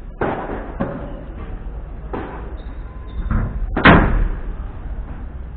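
A padel rally: about six sharp knocks as the ball is struck by paddles and bounces off the court and glass walls, at an uneven pace. The loudest knock comes just under four seconds in.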